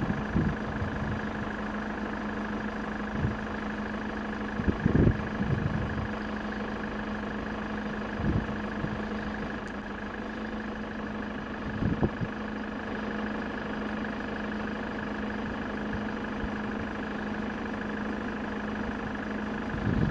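A steady mechanical hum with several fixed tones, broken by a few brief low thumps.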